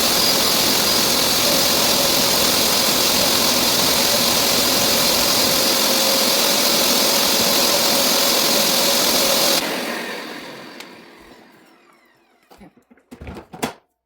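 Hoover carpet cleaner's suction motor running with a steady whine, then switched off about ten seconds in and winding down over a couple of seconds, followed by a few faint knocks.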